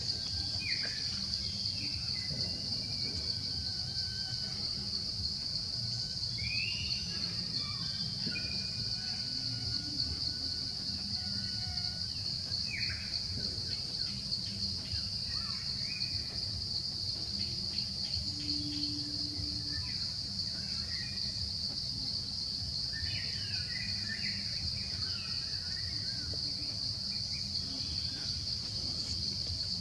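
Steady high-pitched insect drone, with scattered short chirps and calls over it.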